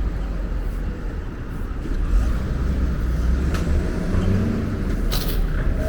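City street traffic: a motor vehicle's engine rumbling close by, getting louder about two seconds in, with a short hiss near the end.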